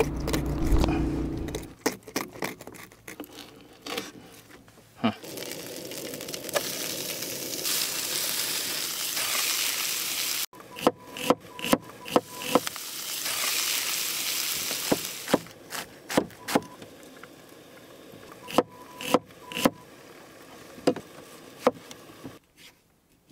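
Fish frying in oil in a pan, sizzling in two long stretches, with sharp knocks of a knife chopping on a wooden cutting board between them and near the end.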